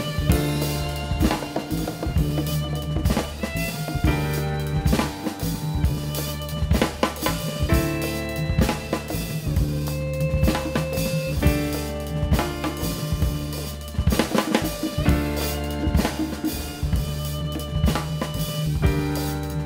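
Live band music: a drum kit keeps a steady beat under sustained bass notes and shifting melody lines.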